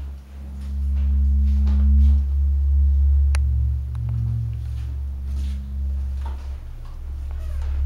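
A low, steady synthesized drone from an eerie background score, its pitch held with a fainter tone above it. It swells about a second in, and a single sharp click sounds a little past three seconds.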